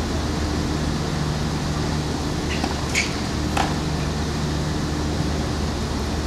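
Steady low machine hum, with two sharp tennis-ball pops about half a second apart a few seconds in: a ball bouncing on the hard court and struck by a racket.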